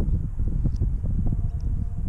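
Small fish flapping and knocking against wooden jetty boards as it is handled and unhooked, a run of irregular soft thumps. A low wind rumble on the microphone sits under it.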